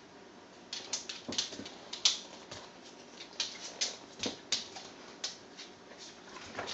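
Irregular light clicks and taps, about two or three a second.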